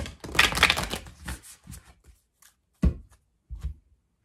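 A deck of oracle cards being shuffled by hand: a quick papery rustle lasting about a second, then a few short soft knocks as the deck is tapped and set down on the table.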